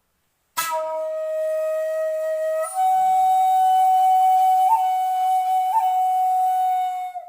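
Home-made shakuhachi in D sharp played with a breathy attack: one long note that steps up to a slightly higher note partway through and is held, with two brief flicks up to a higher note, until it stops at the end.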